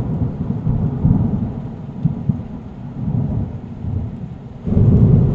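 Thunderstorm sound effect: low rolling thunder with rain, the rumble easing off and then surging louder near the end.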